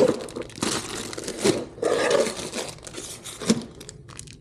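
Rustling and crinkling handling noise, like a packaged new motorcycle chain being picked up and moved, with a single sharp knock about three and a half seconds in.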